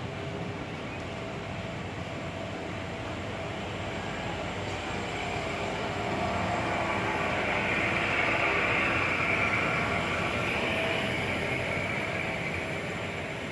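A passing vehicle: a steady noise that swells to its loudest about two-thirds of the way through, then fades a little.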